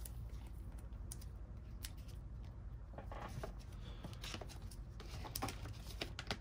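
Faint rustling and scattered small clicks of a trading card and a soft plastic sleeve being handled as the card is slid in, over a steady low hum.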